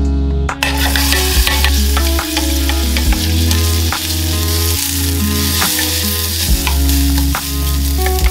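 Sliced onions, carrots and shallots sizzling in hot oil in a stainless steel saucepan, starting about half a second in, with the scrape and clatter of a wooden spatula stirring them as they sauté to brown. Background music with a steady bass line plays under it.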